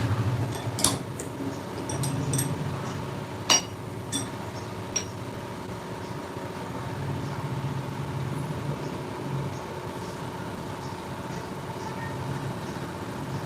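A machine running with a steady hum, and a few sharp metallic clinks in the first five seconds, the loudest about three and a half seconds in.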